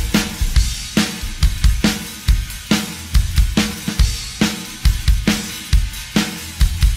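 Isolated rock drum kit track playing a steady driving beat: bass drum and snare alternating at about two strong hits a second under a constant wash of cymbals and hi-hat.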